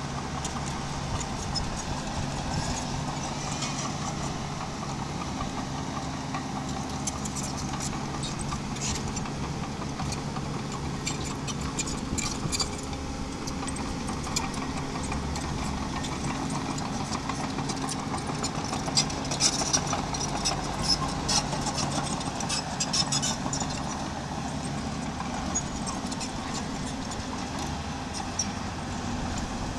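Small bulldozer's diesel engine running steadily at a low, even pitch while it works stone. A cluster of sharp clanks and rattles comes about 19 to 23 seconds in.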